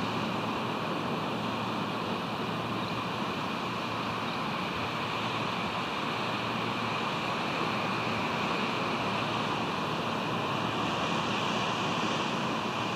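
Steady hiss of ocean surf and wind on the nest camera's microphone.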